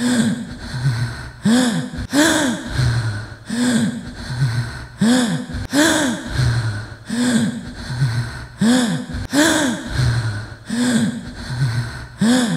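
Repeated gasps, one about every three-quarters of a second, each with a brief rise and fall in pitch, over a low droning tone.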